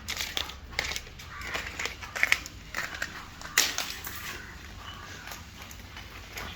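Puppy chewing and crunching on something in irregular crackles, the loudest about three and a half seconds in.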